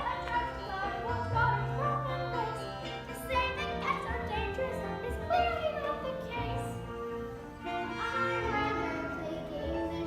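A young musical-theatre cast singing a show tune over a musical accompaniment, with held bass notes changing every second or two under the sung melody.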